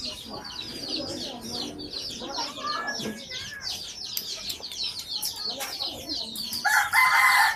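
Chickens: a steady run of quick, high chirps, then a loud rooster crow that starts near the end.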